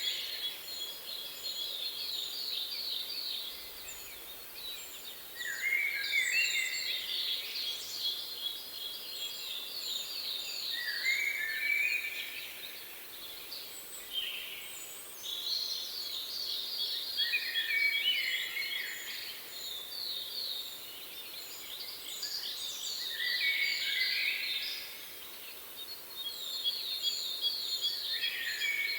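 Songbird singing the same rapid, trilled phrase over and over every few seconds, each phrase dropping lower at its end, with fainter short high chirps between phrases.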